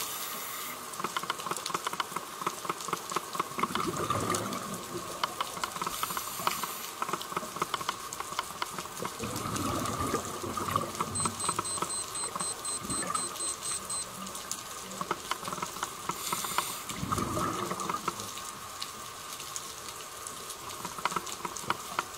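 Water noise with a continuous crackle of small clicks and a few deeper rushes of water.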